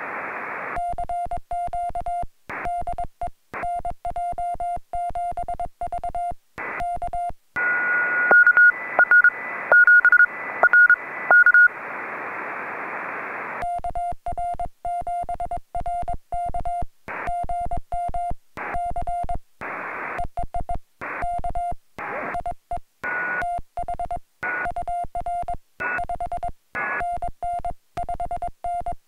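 Morse code sent with a paddle, heard as the Yaesu FT-817's sidetone: a steady mid-pitched beep keyed in dits and dahs. From about eight to thirteen seconds in, the radio is on receive instead: receiver hiss, with another station's Morse signal beeping at a higher pitch.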